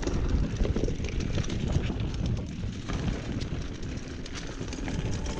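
Mountain bike riding over a dirt forest trail: a steady rumble of the tyres on the ground with many small clicks and rattles from the bike.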